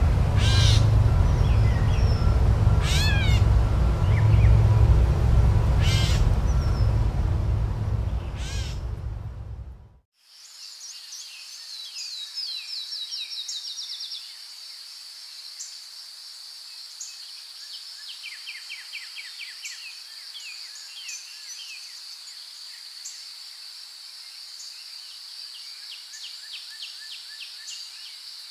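Bird calls a few seconds apart over a loud low rumble, which cut off suddenly about ten seconds in. Then comes a quieter, steady high insect drone with scattered short chirps.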